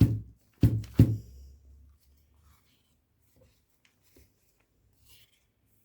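Dental flask filled with freshly poured liquid plaster being tapped against the bench: the last two heavy knocks come within the first second, then only faint small handling sounds. The tapping settles the plaster into the flask.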